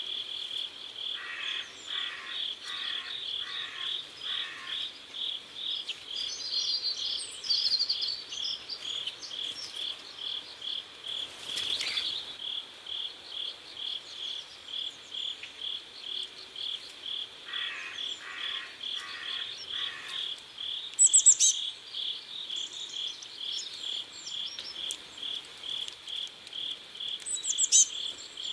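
Cricket chirping steadily, about three even chirps a second, with a bird calling a few times in short, higher-pitched chirps.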